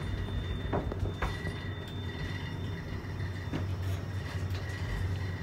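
Hotel elevator car in motion: a steady low hum with a faint high whine, and a few light clicks.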